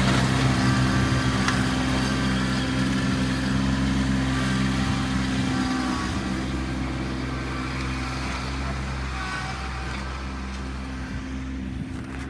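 Kubota B2650 compact tractor's three-cylinder diesel engine running steadily, fading gradually.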